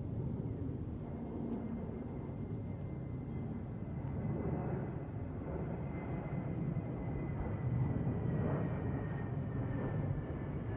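Jet airliner's engines heard as a steady low rumble as it passes, with a thin high whine that drifts slightly lower in pitch.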